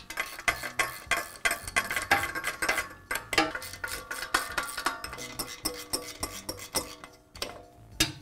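Ratchet wrench clicking rapidly in quick runs as the screws holding the pump to the engine are loosened, with small metallic clinks.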